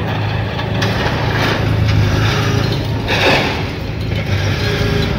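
Diesel engine of a tracked excavator running steadily as it picks up and loads scrap: a low, even hum with a few short swells of rushing noise over it.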